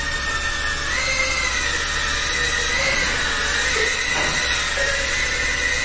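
Small FPV racing drones flying, their motors and propellers giving a high whine that rises and falls with throttle over a steady hiss.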